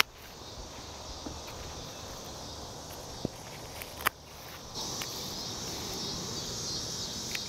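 Steady, high insect chirring from the garden, louder from about two thirds of the way in, with a few light clicks and rustles as dry flower seed heads are handled.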